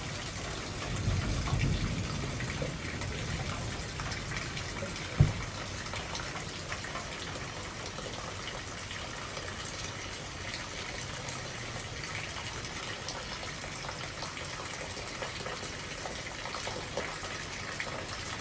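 Heavy rain pouring steadily, with water gushing from overflowing gutters. A low rumble comes about a second in, and a single sharp thump about five seconds in.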